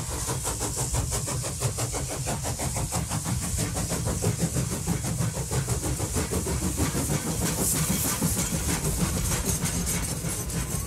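Steam locomotive running, its exhaust chuffing in a fast, even beat over a steady hiss of steam.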